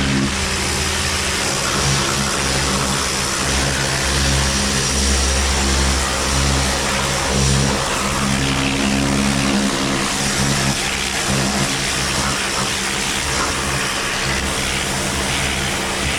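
An electric machine running steadily, a motor hum under a loud hiss.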